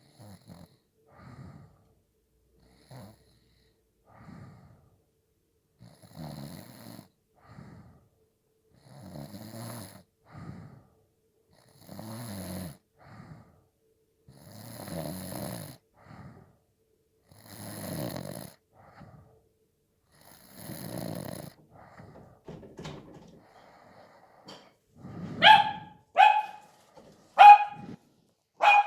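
A person snoring, about one snore every three seconds, each followed by a softer breath out. Near the end come four sharp, loud barks.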